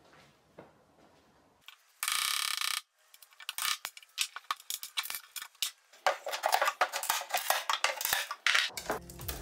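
A metal blade prying at the joints of a wooden cabinet top: a short scrape about two seconds in, then irregular clicks, taps and scraping that grow denser from about six seconds. Background music comes back in near the end.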